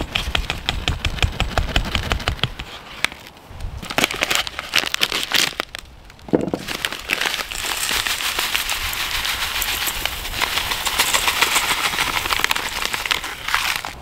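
A bag crinkling as flour is shaken out of it into a stainless steel bowl. About six seconds in, panko breadcrumbs start pouring from a plastic packet into another steel bowl, a steady rush of crumbs that runs for several seconds before stopping near the end.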